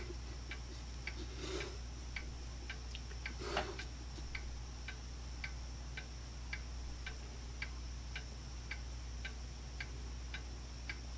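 Steady, even ticking, just under two ticks a second, over a low steady hum, with two faint swishes in the first few seconds as latex is brushed on.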